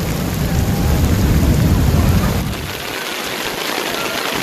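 Heavy rain pouring down in a steady hiss, with a deep rumble under it that dies away about two and a half seconds in.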